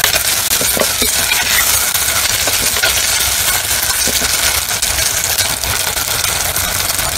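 Brinjal, onion and tomato sizzling in hot oil in a clay pot, stirred with a steel ladle that clinks and scrapes against the pot a few times, most of all in the first second.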